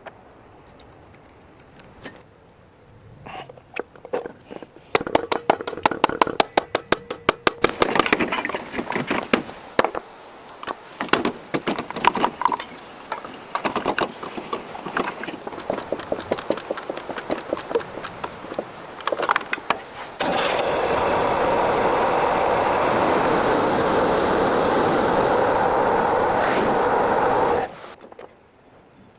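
Hand-tool work with scraping and rapid clicking, followed by a motor-driven tool running steadily for about seven seconds, then stopping abruptly.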